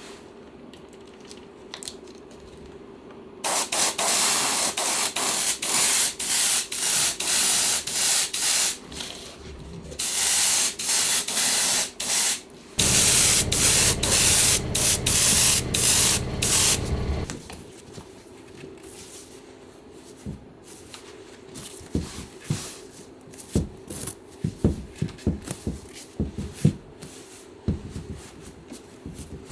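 Spray hissing in many short, repeated bursts, typical of adhesive being sprayed onto new cushion padding during reupholstery. It stops about two thirds of the way through, and scattered light clicks and knocks of handling follow.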